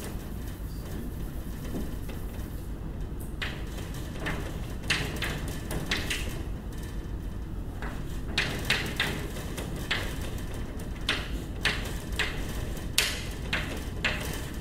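Chalk scratching and tapping on a blackboard as a formula is written: short scrapes in irregular runs, starting about three seconds in and coming thicker in the second half, over a steady low room hum.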